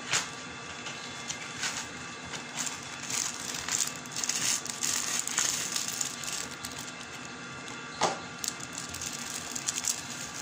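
Clear plastic oven roasting bag crinkling and rustling as it is worked over a stuffed chicken in a glass dish. Irregular crackling throughout, with a sharp click just after the start and another about eight seconds in.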